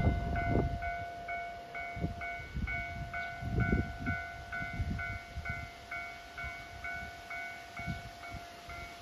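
Railway level crossing warning bell ringing, two alternating electronic tones about twice a second, warning of an approaching train. Under it are a steady lower tone and irregular low rumbles.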